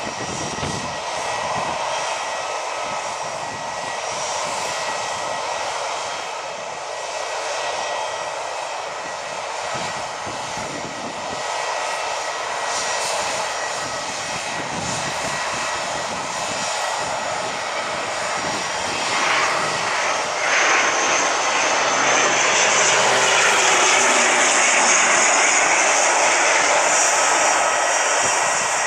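Airliner's engines running: a steady rushing noise with a thin whine, growing louder in the last third.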